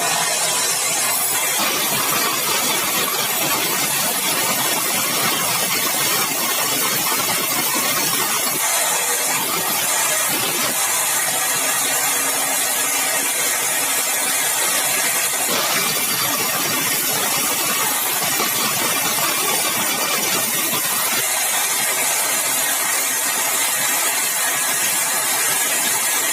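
Sawmill running steadily: engine and saw noise without letup as it saws a large, dry, hard red balau log.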